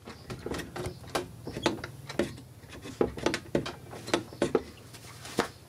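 Irregular light clicks and knocks from handling the electricity meter and its casing, over a low steady hum.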